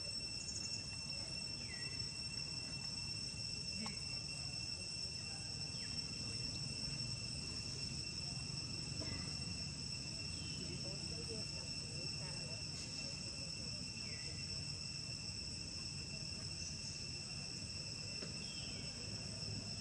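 Insects droning steadily: a continuous shrill, even tone that does not change. Now and then a short falling chirp sounds over it.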